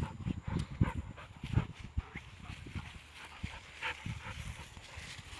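Two young shepherd dogs play-fighting: scattered short growls and grunts, described as sounding like snarling pigs, mixed with paws thudding on the ground.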